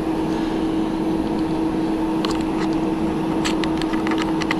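Steady fan hum with a constant low tone, joined by a few light clicks about halfway through and again near the end.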